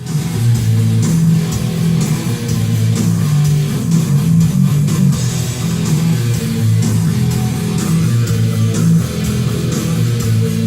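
Rock music with guitar and bass guitar.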